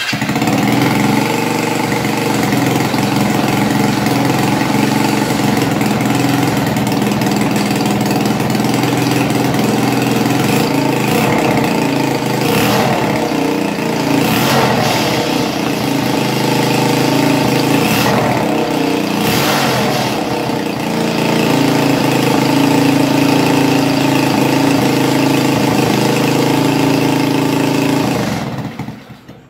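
A go-kart's 110cc single-cylinder four-stroke engine running loud and steady just after starting, with its pitch rising and falling a few times in the middle as the throttle is worked through the new gas pedal cable. It cuts off about a second before the end.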